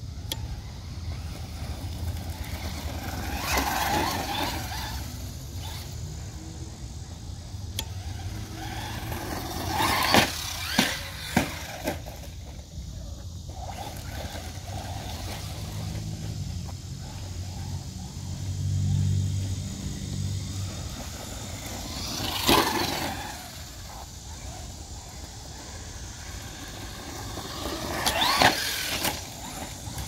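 Traxxas Slash 4X4 Ultimate RC truck's electric motor whining up and down in pitch as the truck accelerates and passes, four times: about four seconds in, around ten seconds, around twenty-two seconds and near the end. Three sharp knocks come just after ten seconds.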